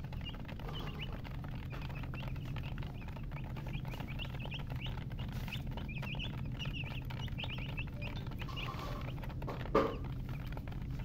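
Baby chicks peeping, many short high rapid calls overlapping, over a steady low hum. A brief louder sound comes near the end.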